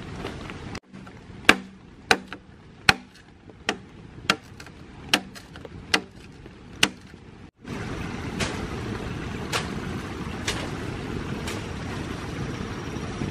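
Knife blade chopping a notch into a green bamboo pole: about eight sharp strikes, roughly one every 0.7 s, the first few with a short hollow ring. About two-thirds of the way in, a steady rushing of wind and rain takes over, with a few faint ticks.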